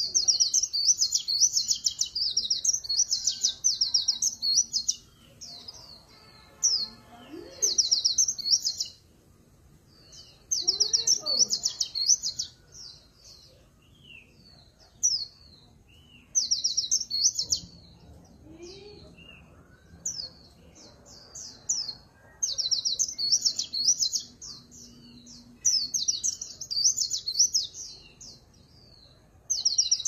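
Caged white-eye singing: bouts of rapid, high twittering trills lasting one to several seconds, broken by short pauses. This is the 'líu pha chòe' song, a warbling song mixed with magpie-robin-like phrases.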